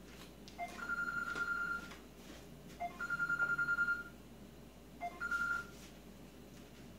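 Telephone ringing with an electronic ringtone. Each ring is a short blip followed by a single steady tone held for about a second, repeating about every two seconds. The third ring stops short after half a second.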